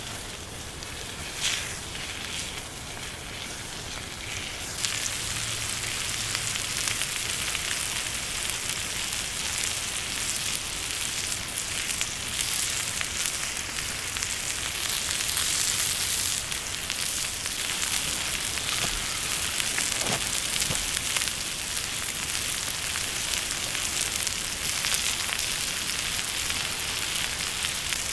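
Goat meat frying on a hot stone: a steady sizzle with fine crackles that grows louder about five seconds in.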